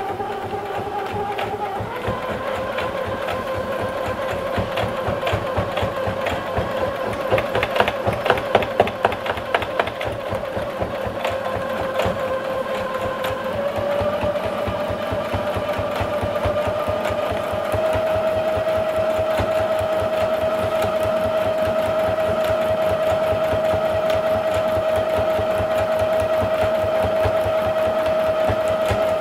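Electric sewing machine stitching cotton lab-coat fabric: a rapid, even chatter of needle strokes over a steady motor whine. The whine steps up in pitch a few times as the machine speeds up, and it is a little louder in the last third. The strokes clatter louder for a couple of seconds near eight seconds in.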